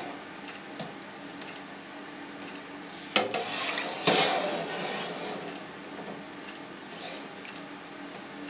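Plastic skimmer stirring and scraping through cheese curds and whey in a stainless steel pan, with the whey sloshing as the curds are pushed together into one mass. A sharp knock of the skimmer against the pan about three seconds in and another a second later, each followed by swishing.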